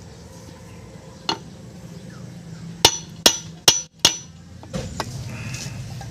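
A hammer striking metal: one blow, then about a second and a half later four quick blows roughly 0.4 s apart, over a low steady hum.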